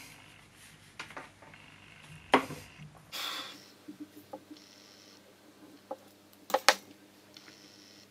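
Small objects handled on a desk: a tube of silicone sealant and tools picked up, squeezed and set down, giving a scattering of sharp clicks and taps and a few brief rustles over a faint steady hum.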